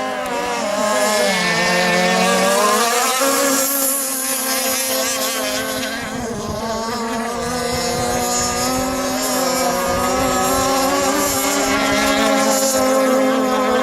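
Small two-stroke gasoline engines of radio-controlled model boats running on the water, a steady high-pitched buzz. One engine's pitch dips and climbs again in the first few seconds, as if throttling off and back on, while another holds a steady pitch.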